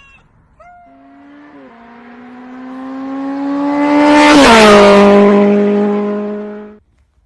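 One long, drawn-out pitched wail. It swells slowly to very loud, drops in pitch about four seconds in, holds there, then cuts off abruptly.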